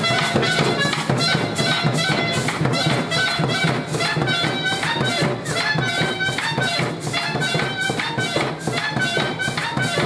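Upbeat dance music with brass and a quick, steady beat, played throughout.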